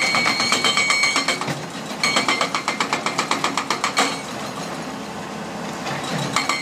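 Diesel construction machinery running at a demolition site, with a rapid, even metallic clatter in two stretches of about two seconds each: one at the start and one from about two to four seconds in. Between and after them the machinery runs more steadily.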